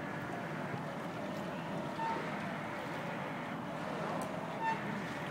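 Tow truck engine running steadily, with two short high beeps about two and a half seconds apart.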